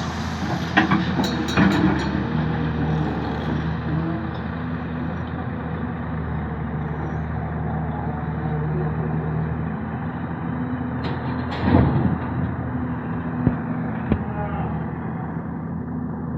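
Hyundai 220 excavator's diesel engine running steadily under work, with a few sharp knocks and clanks from the machine, the loudest about twelve seconds in.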